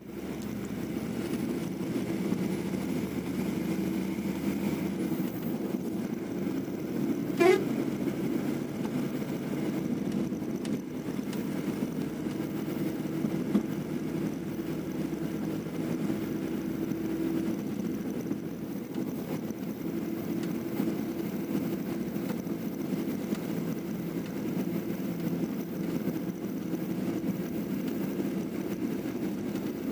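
Steady engine and road noise of a vehicle driving, heard from inside the vehicle, with one short, sharp sound about seven and a half seconds in.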